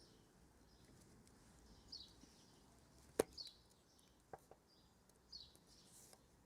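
Faint small clicks of a screwdriver and fingernail prying at the plastic C-clip tabs of a pressure washer hose coupling, the sharpest about three seconds in. A bird chirps faintly in the background several times.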